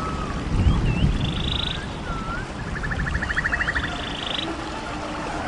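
Animal calls: short whistled swoops each followed by a buzzy trill, heard twice, with a fast rattling trill between them.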